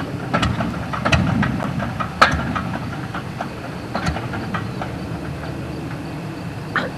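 Steady low engine rumble with irregular clicks and knocks scattered through it.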